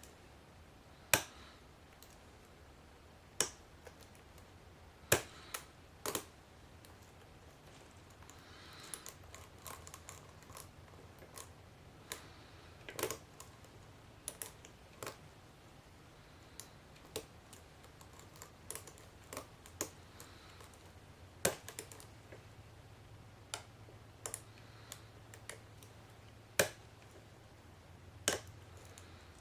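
A brass pin-tumbler padlock being picked with a hook pick and tension wrench: scattered sharp metallic clicks and faint ticks as the pins are lifted and set, with a few louder clicks spaced a few seconds apart. A faint low hum runs underneath.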